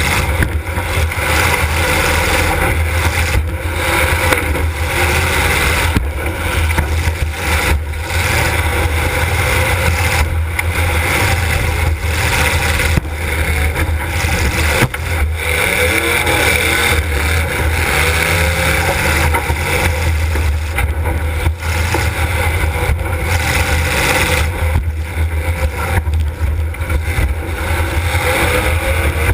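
Demolition derby car's engine running hard and revving, heard from inside the car, with several sharp knocks from hits scattered through it.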